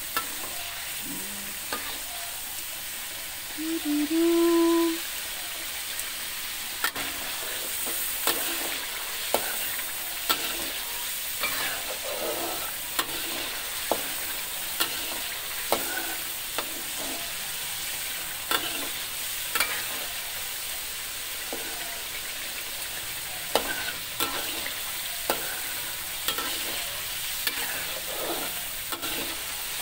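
Chili spice paste sizzling in oil in an aluminium wok, stirred with a metal spatula that taps and scrapes the pan about once a second. The paste is being fried until the oil separates, the sign that it is cooked. A short hum sounds about four seconds in.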